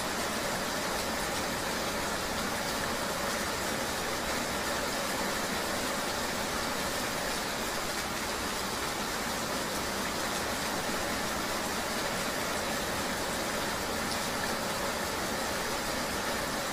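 Steady rain ambience: an even, unbroken hiss of rain with a low rumble underneath, unchanging throughout.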